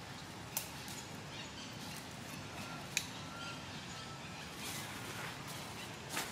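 Outdoor ambience with a few faint short whistled calls and three sharp clicks, about half a second, three seconds and six seconds in.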